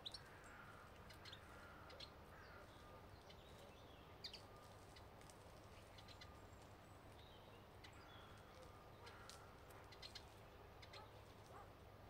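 Faint, scattered chirps and short calls of small songbirds, over a low steady background rumble.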